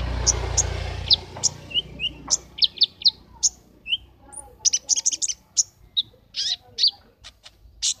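Caged kolibri ninja sunbird singing hard: rapid clusters of sharp, high chirps and short trills. A low rumble sits under the first second or so and then fades.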